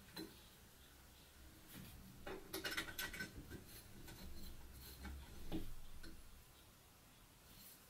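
Steel plates and rubber gaskets being handled and stacked onto bolts: faint light clicks and small metallic clinks, a quick cluster of them a few seconds in and a few single taps later.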